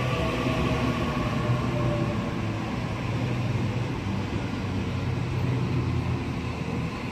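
Sydney Trains double-deck electric train moving along the platform close by: a steady rumble of wheels on rails with a steady hum.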